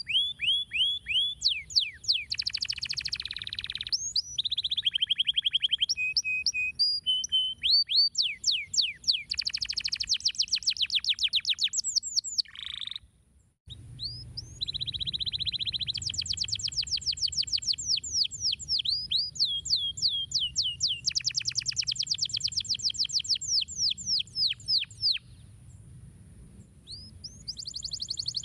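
Domestic canary singing: fast trills of repeated high notes and rapid runs of sweeping whistles, phrase after phrase. The song breaks off for a moment about halfway through, then resumes.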